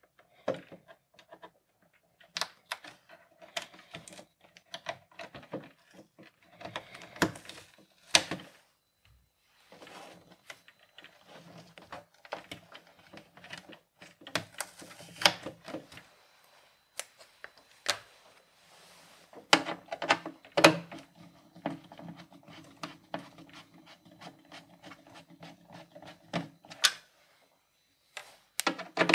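Hands working on the hard plastic base of a smart trash can: irregular clicks, knocks and scraping as the rubber feet are pried off to reach the screws beneath.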